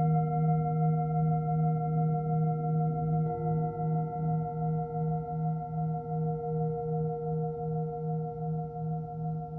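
Singing bowls ringing in long sustained tones at several pitches, the lowest with a slow wavering pulse. A further, higher tone joins about three seconds in and rings on with the others.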